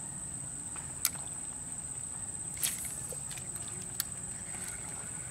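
Steady high-pitched insect drone in a tropical swamp, with three sharp clicks spread across a few seconds.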